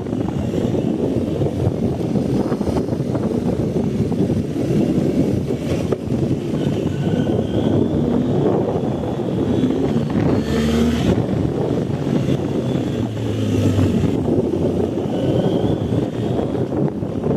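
BMW R 1250 GS boxer-twin engine running steadily under way on a dirt trail, with a brief sharper noise about ten seconds in.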